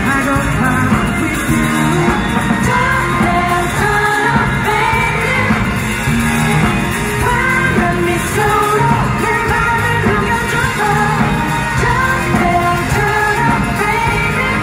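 Live pop-rock band playing: a singing voice over electric guitar and drums, recorded from the audience.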